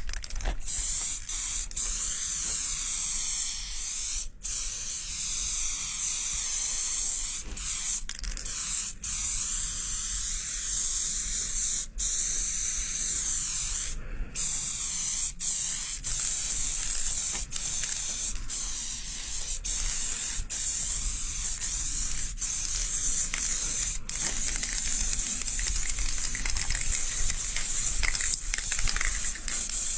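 Aerosol spray paint can hissing in long continuous strokes, with brief breaks every few seconds as the nozzle is released and pressed again.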